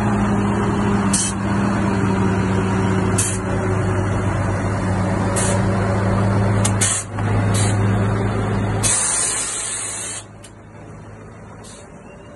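Heavy truck's diesel engine idling with a steady low hum, with short hisses of air every second or two. The engine sound drops away about ten seconds in, leaving a quieter hum.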